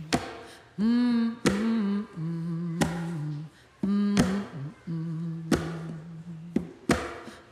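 A woman humming a slow wordless melody in long held notes, with a sharp struck accent about every one and a half seconds keeping time.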